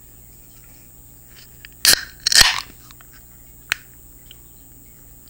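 Aluminium Busch Light beer can cracked open by its pull tab: a sharp crack and a short fizzing hiss about two seconds in, then a single light click about a second later.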